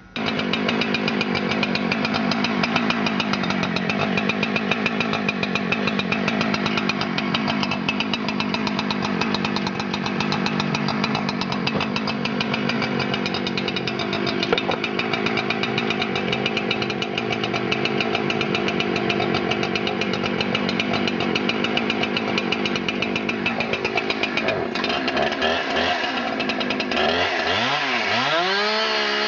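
Husqvarna 372 XP X-Torq two-stroke chainsaw cutting into a large Douglas fir log, running steadily under load for most of the stretch. Near the end the engine note dips and then climbs to a clean, higher, steady pitch as the saw runs free.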